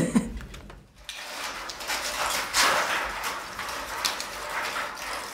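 Roll of hexagonal wire mesh being handled and cut with snips: a steady rustling and scraping of wire, with a few light clicks.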